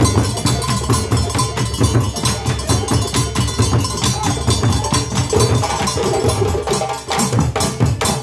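West African drum ensemble playing a fast, driving rhythm on djembes and stick-beaten drums, with deep bass strokes under rapid sharp hits. About seven seconds in the drumming briefly drops, then comes back with a flurry of quick strikes.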